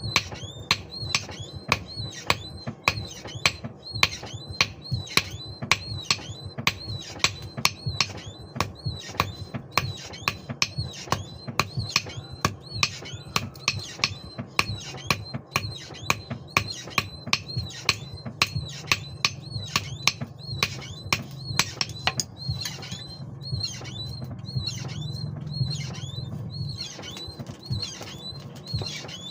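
Hand-forging hammer blows on metal on an anvil, a steady run of about two ringing strikes a second, over a steady low hum.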